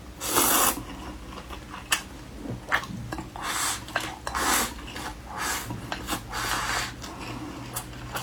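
Eating thick noodles: about five short hissy slurps, each about half a second long, with light clicks and taps of utensils between them.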